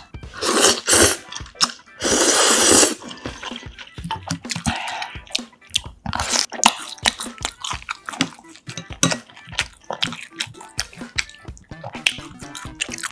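Jjambbong ramen noodles slurped in two long, loud pulls in the first three seconds, followed by close-up wet chewing with many small clicks and crunches.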